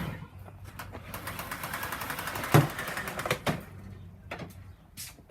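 A run of close clicks and rattles with one louder knock about two and a half seconds in: handling noise.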